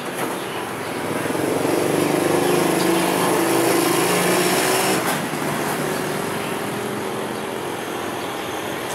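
A motor vehicle's engine passing close by. It swells over the first couple of seconds, is loudest for about three seconds, and drops off sharply about five seconds in, leaving a lower, steady street noise.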